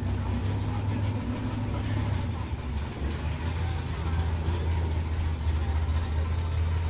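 Hot rod engine idling, a low steady rumble that settles to a slightly lower pitch about three seconds in.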